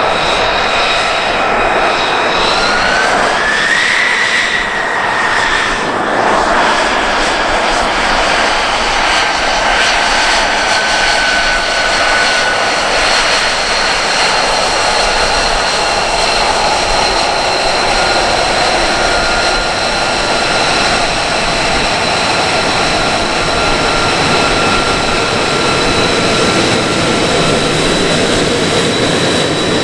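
Lockheed Martin F-35B's single F135 turbofan running at taxi power: a loud, steady jet roar with high whining tones. A few seconds in, the whine rises in pitch, then slowly eases back down.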